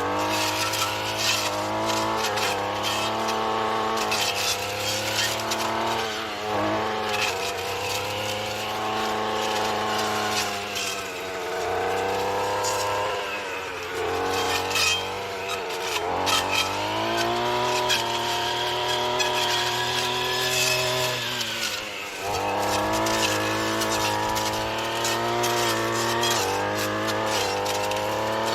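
Weed whacker engine driving a chainsaw-tooth disc blade, revving up and down as it cuts through tangled vines and brush. The revs sag and climb back again about three times.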